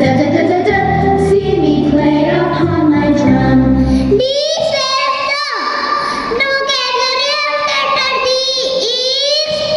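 Children's song: singing over a full instrumental backing with bass, which drops out about four seconds in, leaving a child's voice singing alone with a wavering pitch.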